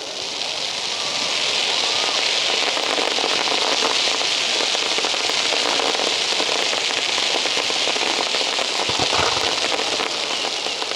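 Crackling fireworks: countless tiny cracks merge into a continuous sizzle that builds over the first two seconds and then holds steady. A few dull low thumps come near the end.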